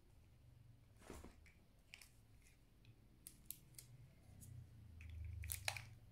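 Faint clicks and a soft rustle of small items being handled and set down, with a cluster of sharper clicks near the end over a low hum.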